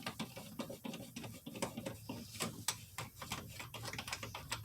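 Faint, irregular light clicks and taps of hands and tools working the plastic steering-column trim and multifunction switch of a Jeep Wrangler TJ, several small knocks a second.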